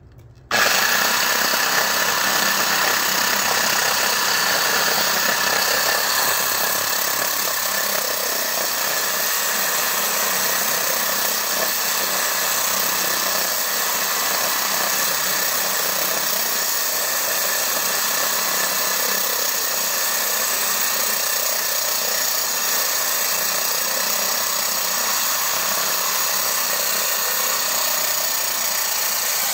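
Homemade core drill, an angle-grinder motor turning a tubular core bit, switched on about half a second in and then running steadily as it cuts into a concrete slab.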